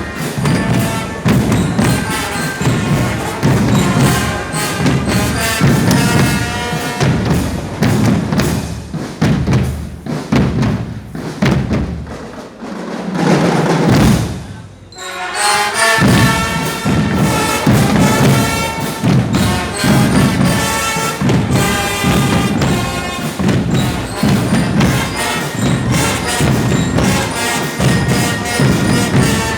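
Music with a steady, thumping drum beat under a pitched melody; it drops away briefly about fifteen seconds in, then picks up again.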